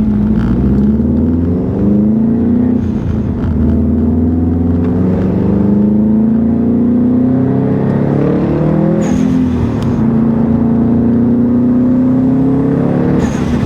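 2015 Subaru STI's turbocharged flat-four engine accelerating through the gears. Its pitch rises in three long pulls and drops at each shift, and a short hiss at two of the shifts is the newly fitted HKS blow-off valve venting.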